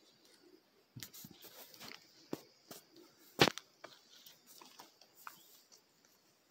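Footsteps of someone walking barefoot over forest-floor leaf litter and sticks: irregular soft crackles and knocks, with one sharp crack about three and a half seconds in.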